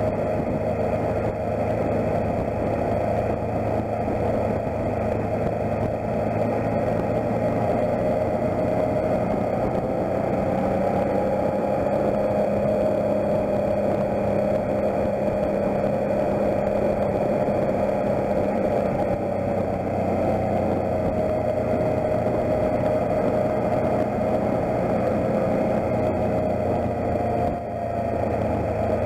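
Motorcycle engine running at road speed over a steady rush of riding noise. Its note climbs a little after about ten seconds and eases off again toward the end.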